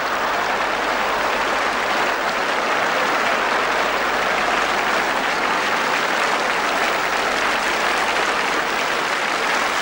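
A large theatre audience applauding steadily after the punchline of a comic poem.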